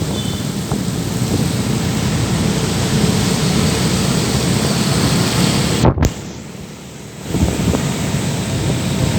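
Heavy rain noise with a low traffic rumble. A sharp click about six seconds in is followed by a second or so of much quieter sound before the rain noise comes back.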